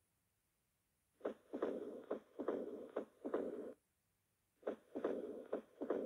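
Stethoscope recording of the heart in moderate mitral stenosis: sharp heart sounds with a murmur between them. It comes in two runs of beats, after a silent first second and with a short silent break near the middle.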